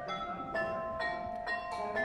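Carillon of Meissen porcelain bells struck from outside by plastic hammers, playing a tune note by note, about two notes a second, each note ringing on softly under the next.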